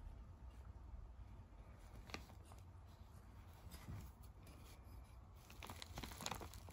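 Near silence: faint room tone with a few soft clicks, and light rustling of plastic packaging near the end.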